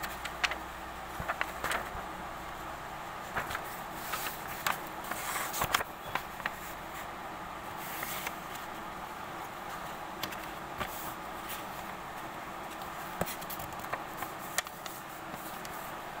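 A sheet of paper handled and folded by hand: short paper rustles, crinkles and light taps, busiest in the first six seconds and sparser after, over a steady background noise.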